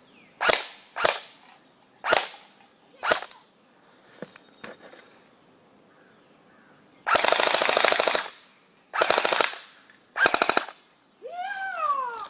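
KingArms M4 airsoft electric rifle firing four single shots, then three rapid full-auto bursts, the last two shorter. A brief falling pitched cry comes near the end.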